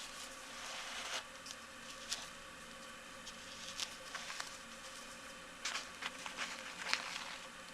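Soft rustling and small irregular clicks of hands working a needle and shoe thread on a sewn-on slipper sole, over a faint steady hum.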